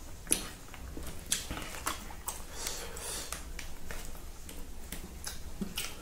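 Close-up eating sounds: chewing and lip-smacking as rice with silkworms and egg is eaten by hand, heard as an irregular run of short clicks and smacks about two a second.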